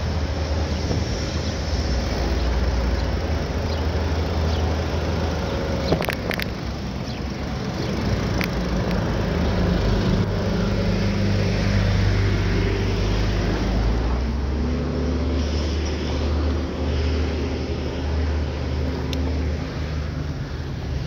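Wind buffeting the microphone of a camera rigged to a moving bicycle: a steady, low-heavy noise, with a couple of sharp clicks about six seconds in.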